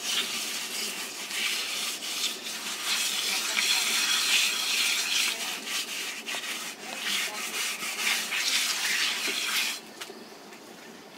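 Water running and splashing into a vessel, a steady rushing that stops abruptly near the end.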